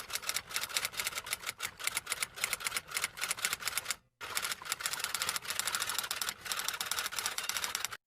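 Typewriter keys clacking in rapid, busy typing, in two runs with a brief break about four seconds in.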